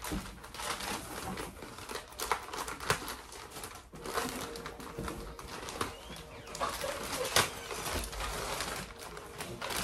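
Clear plastic packaging around bedding crinkling and rustling as it is handled, in a string of irregular sharp crackles. A faint low held tone sits underneath for a few seconds partway through.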